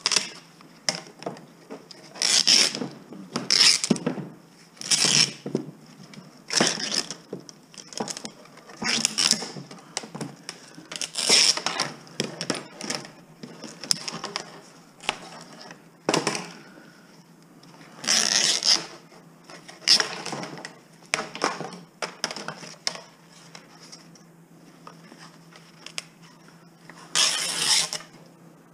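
Metal frame pieces clanking and scraping against each other and the workbench as they are handled and pulled apart, in irregular knocks and short rattling bursts every second or two.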